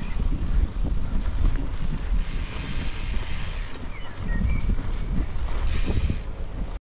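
Wind rumbling on the microphone of a moving bicycle. Twice, about two seconds in and again near the end, a hiss of bike tyres churning through loose sand rises over it.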